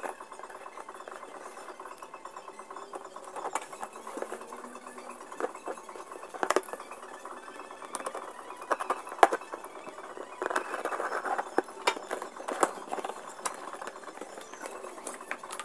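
A small folding knife slicing through packing tape on a cardboard shipping box, with scraping and a string of sharp knocks and clicks as the cardboard is handled and the flaps are opened. The longest rasping cut comes a little after halfway.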